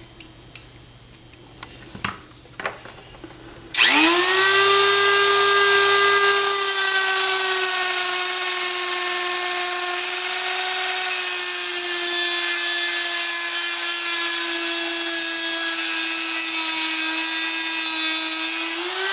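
A few light clicks, then about four seconds in a handheld rotary tool switches on, spins up quickly and holds a steady high whine as its abrasive cut-off wheel grinds through a metal screw, the pitch sagging slightly under the load.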